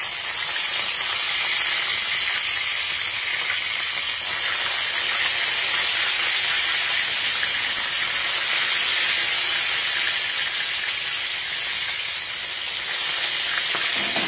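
Whole liwalo fish deep-frying in hot oil in an aluminium wok, a loud steady sizzle with the oil foaming around the fish.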